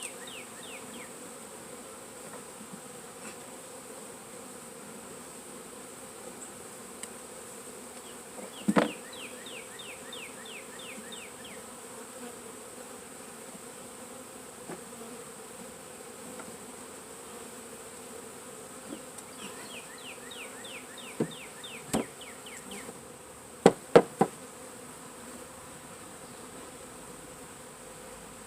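Steady buzzing of a large mass of honeybees from a 3 lb package being installed into a hive. A few sharp knocks stand out, one about 9 seconds in and a cluster between about 21 and 24 seconds, and a quick run of high chirps comes three times.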